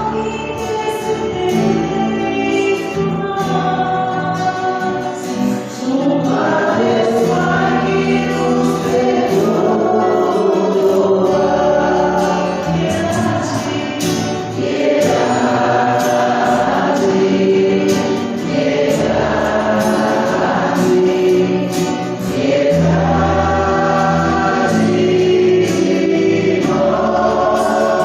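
Gospel song sung by a choir with accompaniment, in long held phrases.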